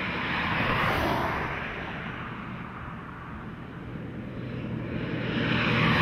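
Traffic noise: passing vehicles rising and falling, quietest about halfway through and building again toward the end.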